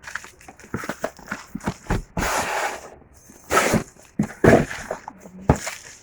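Packaging being handled and opened: a run of taps and clicks with rustling and scraping, the longest rustle a little past two seconds in.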